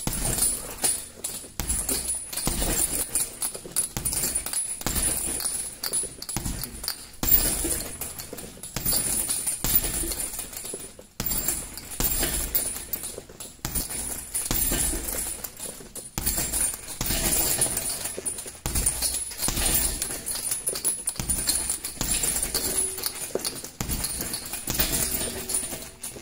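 Boxing gloves repeatedly hitting a hanging heavy bag in jab and left hook combinations, a run of dull thuds at an uneven pace, with a light metallic jingle throughout.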